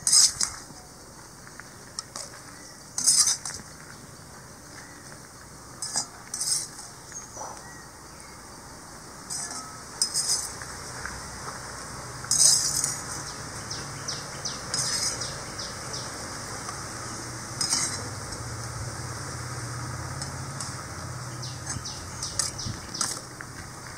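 Metal ladle scraping and clinking against a black iron kadai as sautéed okra and onions are scooped out and dropped into a pressure cooker, a clank or scrape every few seconds. A low steady hum comes in about halfway through.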